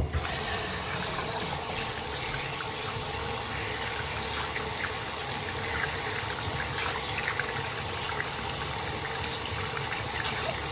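A faucet is turned on and runs at full flow, a steady rush of water into the sink that starts suddenly. It is drawing water to test for hot water from the just-reset water heater.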